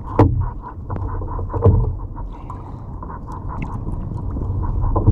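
A hooked mac tuna thrashing against the side of a fishing kayak: a fast, even fluttering of about eight beats a second, with two sharp knocks on the hull, one just after the start and one about a second and a half in.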